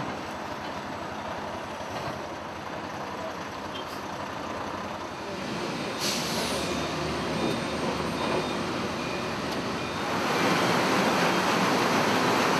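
Heavy truck running at a tomato cannery gate, with a short air-brake hiss about six seconds in. From about ten seconds on comes a louder rushing noise of water washing tomatoes in the plant's flume.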